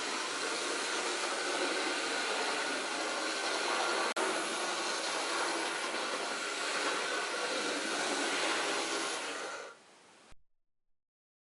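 Lima 00 gauge model locomotive's tender-mounted pancake motor running, a steady whirr with a faint whine, with a very short break about four seconds in. It fades and cuts off shortly before the end.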